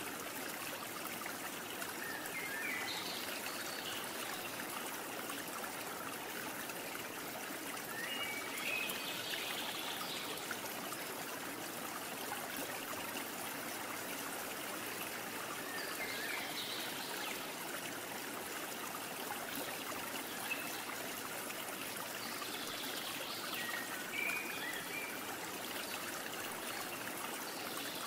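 Steady rushing noise like running water, with faint short chirps every six to eight seconds.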